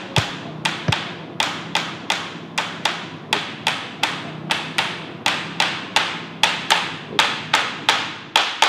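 A steady, even rhythm of sharp taps, about two and a half a second, each dying away quickly, over a faint low hum.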